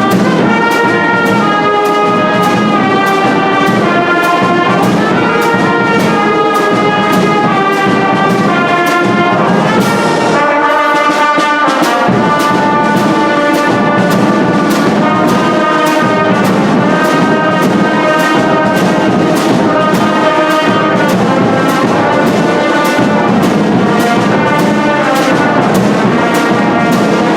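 A band playing a tune, with brass instruments carrying the melody over a steady beat.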